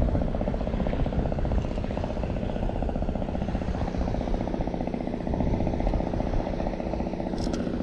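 An engine running steadily close by, a low, even pulsing drone. A couple of brief sharp clicks sound near the end.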